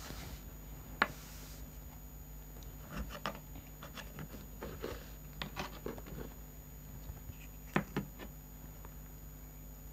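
Clicks, knocks and light scrapes of a knife and fingers on a large aluminium pizza tray as a slice is cut and pulled free: one sharp click about a second in, a scattered run of small knocks and scrapes in the middle, and two clicks in quick succession near the end. A steady low hum runs underneath.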